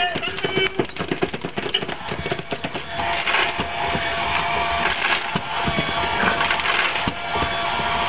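Cat crunching dry kibble at an automatic pet feeder's bowl, a dense run of small irregular crunches and clicks. From about three seconds in, a steady mechanical whir joins, typical of the feeder's dispensing motor turning.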